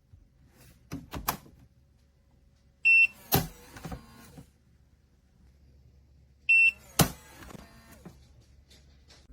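Biometric pistol safe opening twice: each time a short electronic beep, then a sharp metallic clunk as the latch releases and the lid springs open. A couple of lighter clicks come about a second in.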